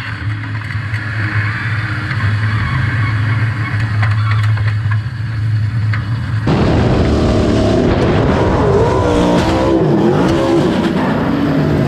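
360 sprint car's V8 engine running hard at racing speed on a dirt track, heard onboard. About six and a half seconds in the sound jumps louder and the engine pitch rises and falls as the throttle is worked.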